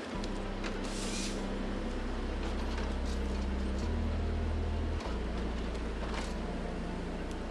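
Heavy machinery engine running with a steady low drone that changes pitch abruptly about four and five seconds in, with a few sharp knocks and creaks.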